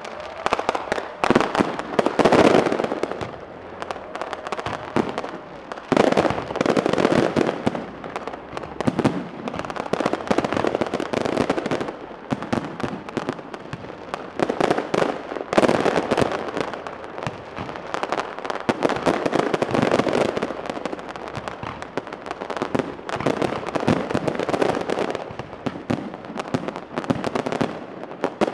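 Fireworks going off close by: dense rapid crackling and popping with bangs, swelling into louder bursts every few seconds.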